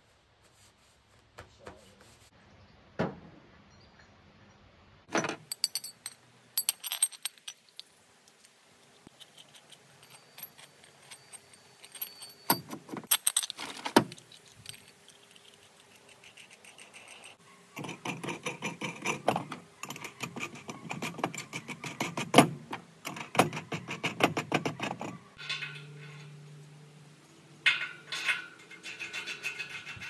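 Small metal hardware and tools clinking and jangling as they are handled. The sounds come in several bursts of rattling with sharp clicks between them.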